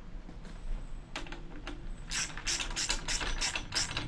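Hand ratchet wrench clicking as a bolt is run down into its nut, not yet snugged. A couple of separate clicks, then a steady run of about five clicks a second from about two seconds in.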